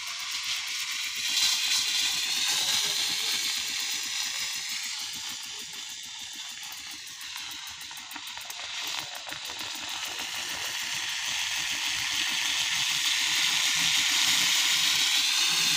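Philips GC8755 steam iron hissing as steam jets from its soleplate: it swells about a second in, eases around the middle and builds again toward the end. The steam flow is back now that its blocked hose has been cleaned.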